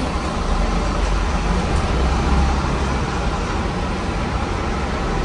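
A coach bus's diesel engine running as the bus creeps forward at low speed. It makes a steady low rumble that swells a little about two seconds in.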